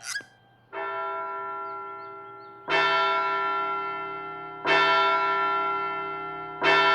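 A large bell tolling four slow strikes about two seconds apart, each ringing on and fading, the first softer than the three that follow.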